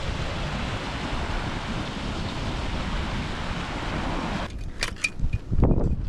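Strong alpine wind buffeting the microphone in a steady roar that cuts off suddenly about four and a half seconds in. A few sharp clicks and a thud follow.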